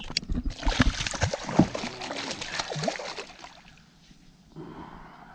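A bowfin (mudfish) thrashing and splashing at the water's surface while it is held and unhooked. There are about three seconds of busy splashing, which die away after about three seconds.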